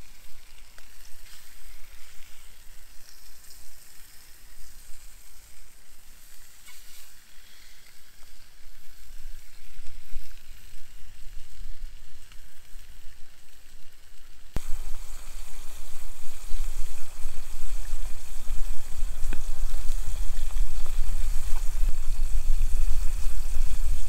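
Bratwurst sizzling in a lidded pot on a Trangia-type spirit stove, a steady frying hiss. About halfway through it gets louder, with a low rumble added.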